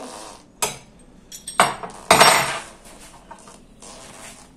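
Metal hand tools clanking against metal: sharp clanks with a bright metallic ring. There is one about half a second in, another at about a second and a half, and the loudest, longest one just after two seconds.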